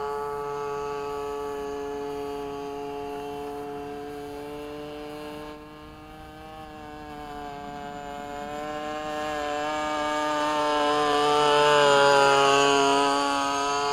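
Petrol engine of a radio-controlled Fiat CR38 scale model plane in flight, a steady high-pitched drone. It fades as the plane flies off, then grows louder as the plane comes back close, and the pitch drops as it goes by about twelve seconds in.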